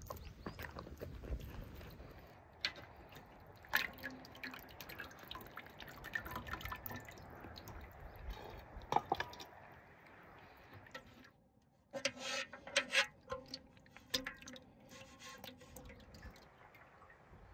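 Meat broth dripping and trickling from a metal strainer back into a large pot of broth, in many small irregular drips and splashes, busiest in the second half. At the start, a dog chews a lump of meat.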